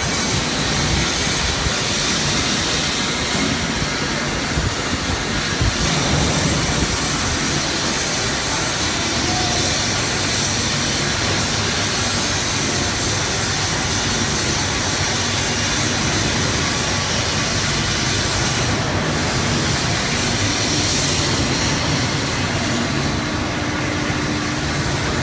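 Steady mechanical running noise of a Pressmaster RJ1 toggle-joint power press, its drive motor and flywheel whirring, with no distinct strokes or impacts standing out.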